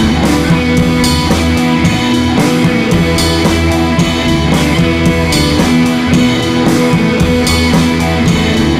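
Rock music playing, with electric guitar and a drum kit keeping a steady beat.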